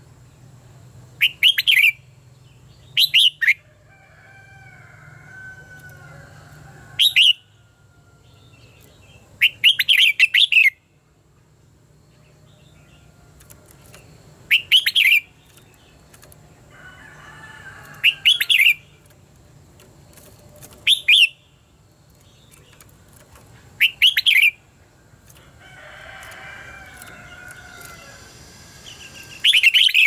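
Red-whiskered bulbul singing: loud, short bursts of rapid sharp notes every two to three seconds, with softer warbled phrases between them.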